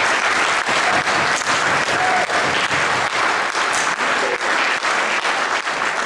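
Audience applauding, many hands clapping steadily.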